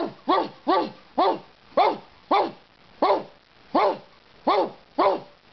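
A man imitating a dog's barking, about ten short barks at roughly two a second, each rising then falling in pitch, to trigger an anti-bark collar pressed against his throat.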